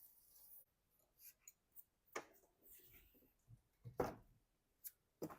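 Faint, scattered clicks and light knocks of small metal parts and tools being handled, with three louder knocks about two, four and five seconds in.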